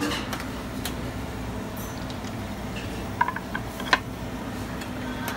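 Kitchen sounds over a steady machine hum: a stainless-steel oven door is pulled open at the start, then a few sharp metallic clinks come around three and four seconds in as a hot cast-iron skillet is handled.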